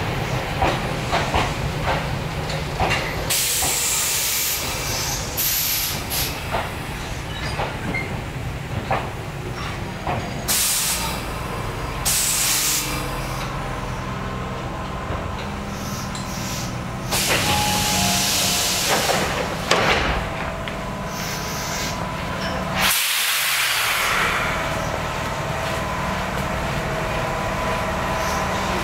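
Electric train standing at a station, with a steady low hum under it and about six hisses of compressed air, each a second or two long.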